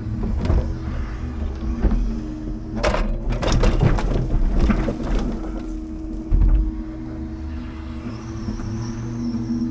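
Scania timber truck running with a steady low hum. Irregular knocks and clunks come around the middle, then one heavy thump.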